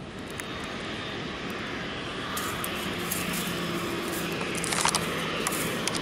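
Boeing 737-700's CFM56 turbofan engines running as the jet rolls along the runway, a steady jet rush with a faint hum that grows gradually louder. A few short clicks come in the second half.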